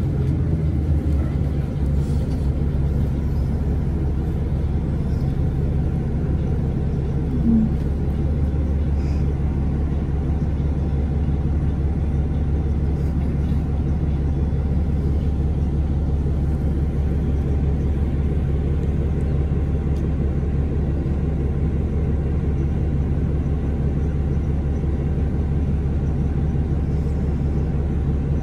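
Cummins ISL9 diesel engine of a 2011 Orion VII 3G transit bus running steadily with a low road rumble.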